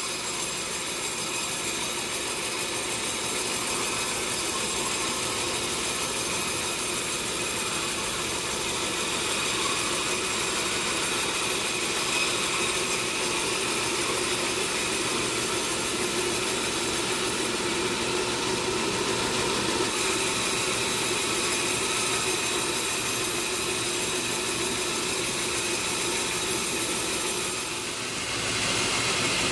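Sawmill machinery running steadily, a continuous mechanical hum and noise with a brief dip in level near the end.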